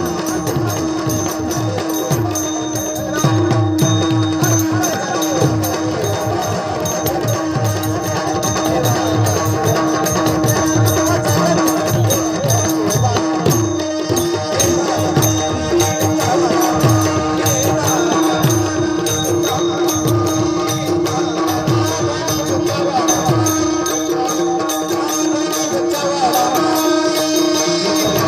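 Tabla playing a steady devotional-song rhythm, its deep bass strokes bending down in pitch, over a held drone note and a melody line, with light metallic ticks keeping time.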